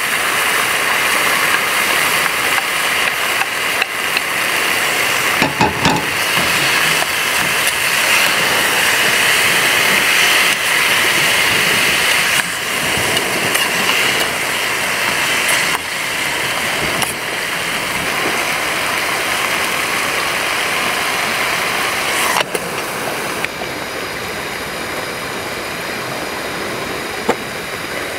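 Enoki mushrooms sizzling and frying in a hot pan over a portable gas stove, a steady hiss, with a few scrapes and knocks of a metal spatula against the pan.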